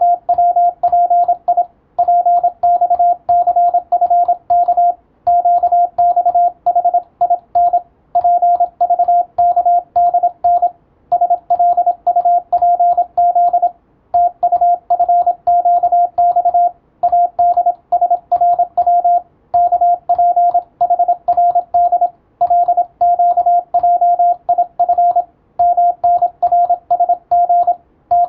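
Morse code (CW) sent as a single steady beep keyed rapidly on and off in dots and dashes, for receiving practice. Short pauses between word groups come about every three seconds.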